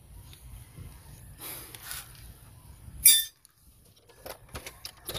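A hex wrench and a disc brake caliper being handled: one sharp metallic clink about three seconds in, the loudest sound, then a few light clicks near the end.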